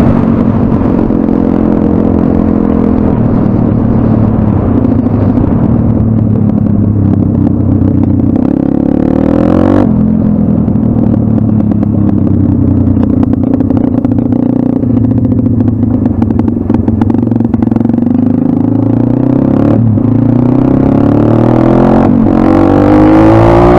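Pit bike's single-cylinder four-stroke engine running under way close to the microphone, its note rising and falling with throttle and gear changes. It dips about ten seconds in and climbs sharply near the end as the bike accelerates.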